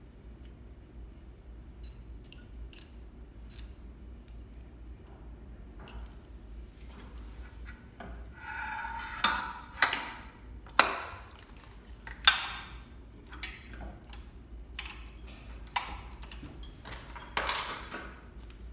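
Handling noises from threading a Juki MO-6700DA serger: scattered light clicks and taps, then several sharper knocks and rubbing sounds, loudest in the second half.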